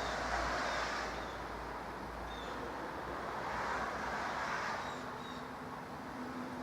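Outdoor ambience during a snowfall: a steady hiss of distant road traffic, swelling as vehicles pass near the start and again about four seconds in.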